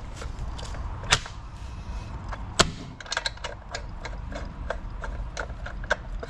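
Irregular light metallic clicks and clacks as the ICS 695 chainsaw's side-cover nut is turned by hand and the bar and chain shift on their mount, with two sharper knocks about one and two and a half seconds in.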